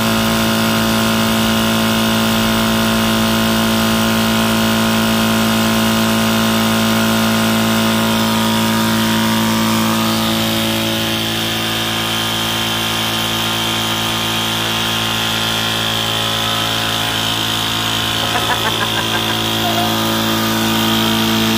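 Tuxing high-pressure PCP air compressor running steadily, a constant mechanical hum.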